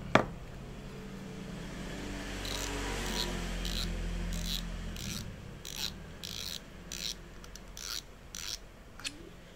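Penn Slammer VI 4500 spinning reel being worked by hand at its spool and front drag knob: a sharp click, then about a dozen short, irregular rasping clicks as the knob and spool are turned to open the reel.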